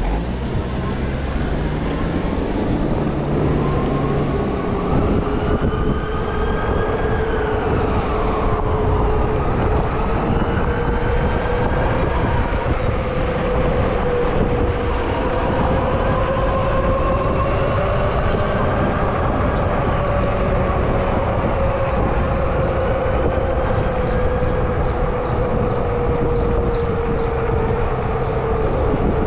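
E-bike hub motor whining under power, its pitch drifting slowly up and down with speed, over a steady low rumble of wind and tyres on the road.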